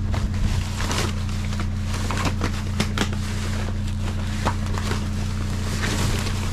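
Rummaging through dumpster contents: toys and other plastic and paper items rustling, clicking and knocking against each other as they are handled, over a steady low hum.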